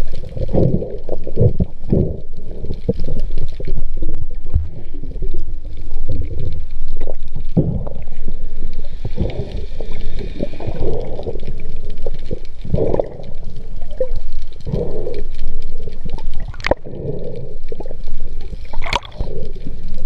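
Muffled underwater sound through an action camera's waterproof housing: water rushing and gurgling past the housing in uneven surges as a spearfisher swims with a speared fish, with two sharp clicks near the end.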